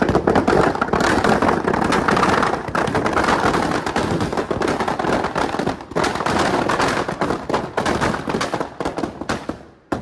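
Firecrackers packed inside a burning Ravan effigy going off in a dense, rapid crackle of bangs, thinning out and dying away near the end.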